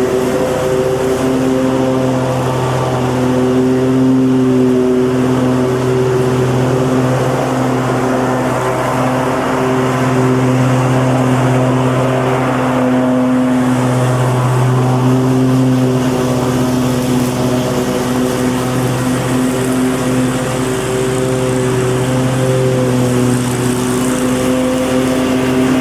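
Petrol lawn mower engine running steadily at a constant speed, a continuous hum over a hiss, its strength wavering slightly every few seconds.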